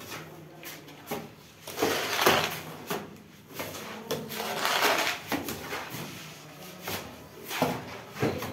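Steel trowel scraping plaster across a brick wall: two longer scrapes a few seconds apart, with short knocks of the trowel in between.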